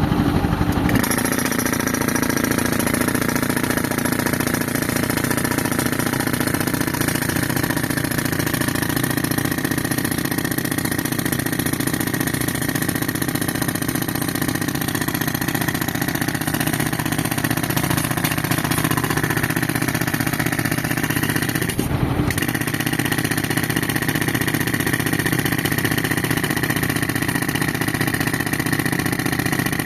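Continuous loud machine noise from a tractor-driven air compressor and the pneumatic breaker it powers, at work breaking a reinforced concrete beam. It breaks off for a moment about 22 seconds in.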